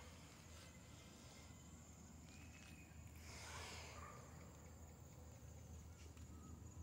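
Near silence: faint outdoor background with a steady high-pitched insect drone, and a brief soft rustle about three and a half seconds in.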